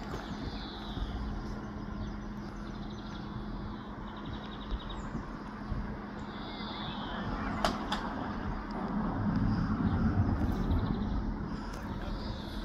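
Road traffic at a level crossing: a steady engine hum, with a vehicle passing louder about nine to eleven seconds in. A bird sings a short falling phrase every few seconds.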